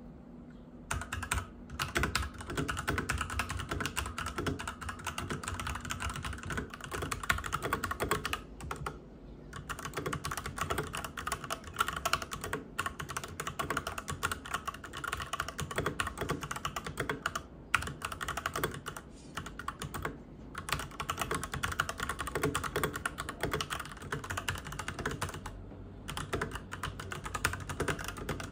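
Steady typing on a Royal Kludge RK87 mechanical keyboard: a continuous stream of crisp key clacks, broken by a few short pauses.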